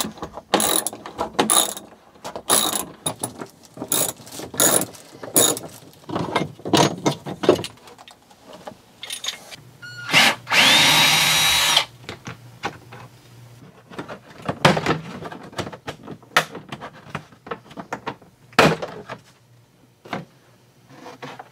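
A hand ratchet clicking in irregular bursts as bolts are worked loose, then a cordless drill/driver running steadily for about two seconds, removing an interior fastener. A few sharp knocks of trim and hardware being handled follow.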